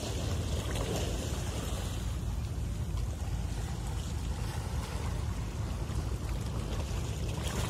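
Steady low rumble with wind and water noise on board a moving boat crossing a harbour.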